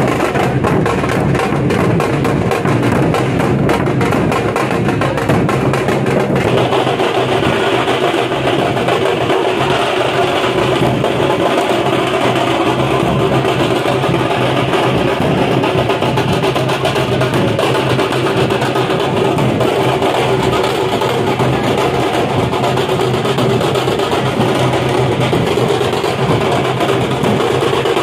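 Dhol drums beating continuously in procession drumming. About six seconds in, the sound fills out with a brighter, higher layer.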